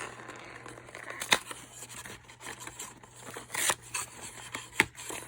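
Rustling and scraping of a gift-set box and its packaging being handled as an item is pulled out from the bottom, with two sharp clicks, about a second in and near the end.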